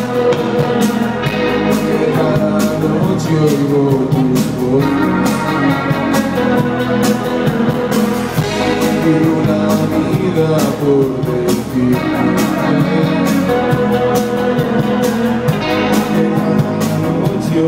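Live band playing through a stage PA: a singer's voice over electric guitar, keyboard and drums, with a steady beat.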